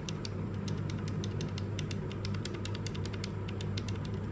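Red (linear) mechanical key switches on an Xtrike-Me GK-916 keyboard being pressed in quick succession: a fast run of light clacks several times a second, thinning out near the end.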